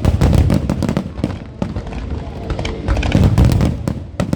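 Fireworks going off in a dense, continuous barrage: rapid sharp reports and crackle over deep booms, with peaks near the start and again about three seconds in.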